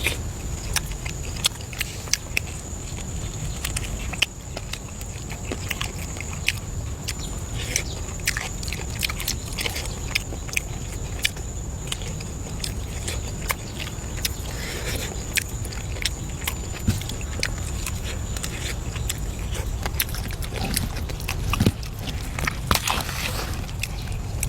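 Close-up chewing and biting of food, with many small irregular clicks and crunches. A thin steady high-pitched tone sits in the background and fades out about three quarters of the way through.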